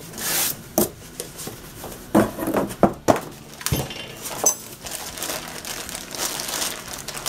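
Plastic bag crinkling and styrofoam packing rustling as a new part is unpacked from a cardboard box, with a few sharp knocks of packing handled on the bench.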